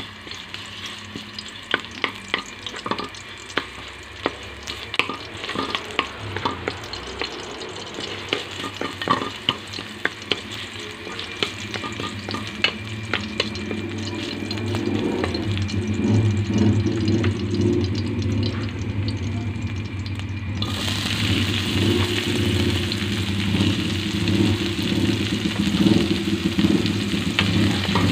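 Minced garlic sizzling in oil in an aluminium wok, with a wooden spatula scraping and knocking against the metal in many sharp clicks. The sizzle grows steadily and jumps louder about three-quarters of the way through, with chopped onion in the pan by the end.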